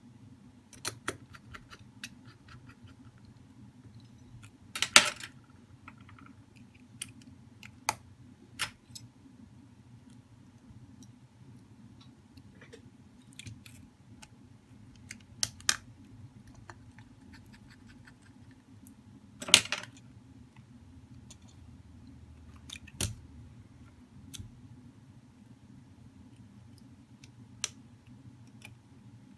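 Scattered sharp clicks and taps of metal tweezers and fingers handling a smartphone's frame and internal parts during disassembly. The loudest comes about five seconds in and another about two-thirds through. A steady low hum runs underneath.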